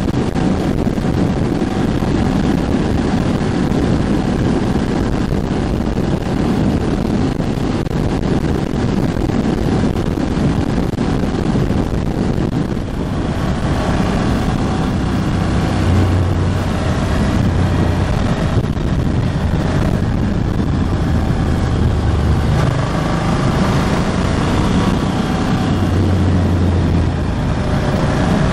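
Ducati Hypermotard 1100S's air-cooled L-twin engine running on the road during its break-in, with wind rushing over the microphone. The engine note rises and falls several times in the second half, with a brief drop in level about halfway through.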